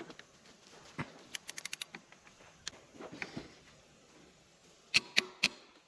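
Sharp metallic clicks of hand tools and timing-chain parts being handled during engine work: a quick run of about seven clicks, a few single clicks, then three louder clicks near the end.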